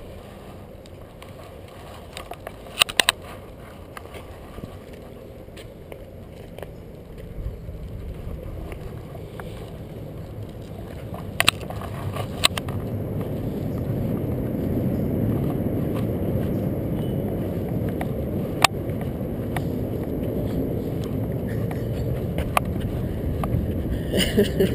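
Walking across the wooden plank deck of a suspension footbridge: a low rumbling noise that grows louder about a third of the way in, with a few scattered sharp knocks.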